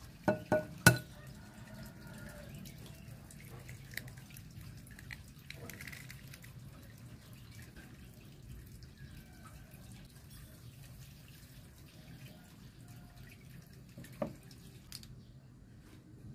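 An egg tapped three times against the rim of a glass mixing bowl, the third tap loudest as the shell cracks. After that only faint handling sounds over a low steady hum, with one more sharp clink near the end.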